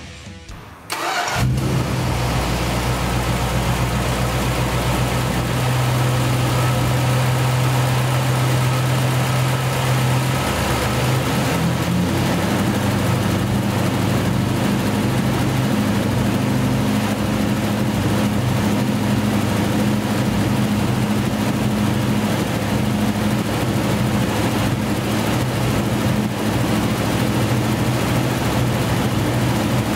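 A 1965 Plymouth Barracuda's 273 cu in V8 starting about a second in and running at a steady idle. Its note shifts slightly lower about ten seconds in.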